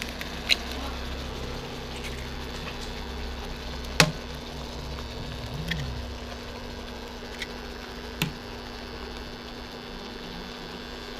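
Eggs being cracked by hand into a wok of simmering rice porridge: a few sharp shell taps, the loudest about four seconds in, over a low steady bubbling and a constant electric hum from the hob.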